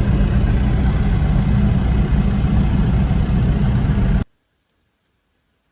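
John Deere 3300 combine running steadily with a loud engine, cutting off abruptly about four seconds in and leaving near silence.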